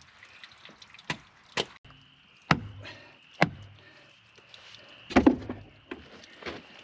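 Hammer knocking wooden stakes into the ground for a makeshift silt fence: about five sharp knocks at uneven intervals, the last a close double.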